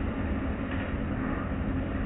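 Automatic car wash heard from inside the car: foamy cloth curtain strips brushing over the windshield and water running down the glass, over a steady low hum and rumble of the wash machinery.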